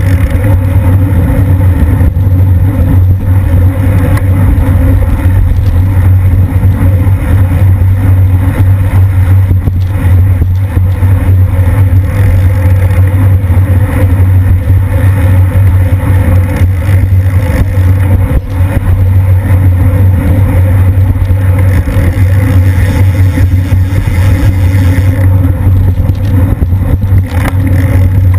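Wind buffeting a bicycle-mounted camera's microphone at about 25 mph race speed: a loud, steady rumble that holds throughout.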